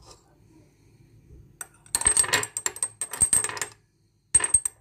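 A utensil clinking and scraping against a container as crushed garlic is transferred into a small jar. There are two runs of quick metallic clinks with a high ringing, about two seconds in and again near the end.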